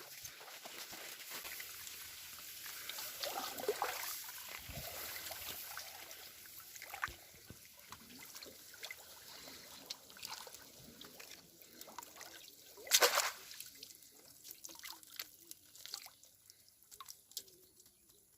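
Water trickling, dripping and sloshing, with many small splashes and one louder, brief noise about two-thirds of the way through.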